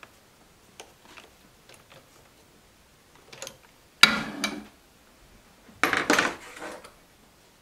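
Metal hand tools clinking and rattling against the engine's fuel line fittings while a line is worked loose. There are a few faint clicks, then two louder metallic rattles about four and six seconds in.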